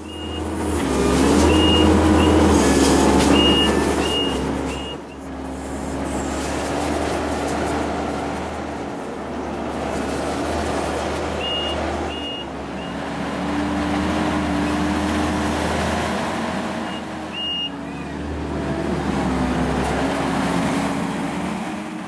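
Kubota compact track loader's diesel engine running under load, its pitch dipping and rising as the hydraulics work the tree puller. A backup alarm beeps in short runs near the start, around the middle and a few seconds before the end.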